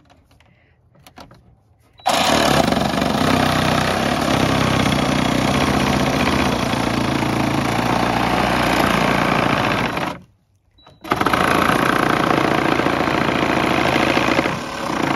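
Red cordless reciprocating saw running under load, starting abruptly about two seconds in and running steadily for about eight seconds, stopping for about a second, then running again to the end.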